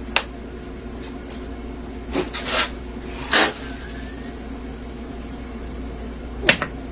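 A person chugging a bottle of Sprite, with short, sharp breaths and swallowing sounds that come singly or in small clusters, over a steady low hum.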